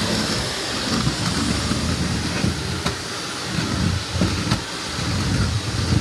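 Shark Navigator Lift-Away Professional vacuum cleaner running in canister mode: a steady motor hiss, with a low rumble that rises and falls as the floor nozzle is pushed over a hardwood floor. A couple of light knocks come in the middle.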